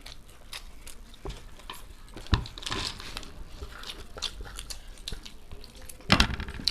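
Eating sounds: chewing and crunching with scattered small clicks, a sharp knock about two seconds in and a louder cluster of crisp sounds near the end.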